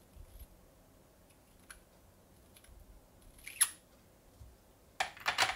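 Brass .338 Lapua Magnum cartridge cases and a hand case-prep tool clicking as they are handled and set into a plastic loading block. There are a few faint ticks, a sharp click about three and a half seconds in, and a brief clatter of clicks near the end.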